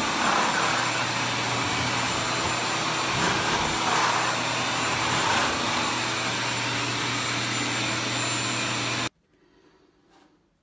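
Vacuum motor running steadily while a scraper blade taped to its wand scrapes popcorn texture off a ceiling. It cuts off suddenly about nine seconds in.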